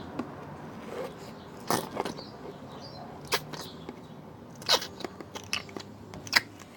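Slime being squeezed and worked by hand, giving off sharp wet pops and crackles. Four louder pops come about every second and a half, with smaller clicks between.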